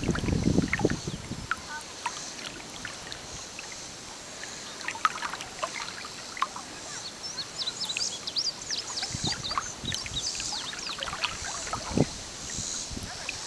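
Several birds chirping and singing, their quick high calls growing thicker in the second half, over small splashes and lapping of lake water against an inflatable float. A low rumble of wind on the microphone in the first second or so.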